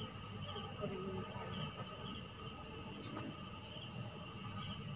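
Night chorus of crickets and other insects: a steady high trill with short chirps repeating over it.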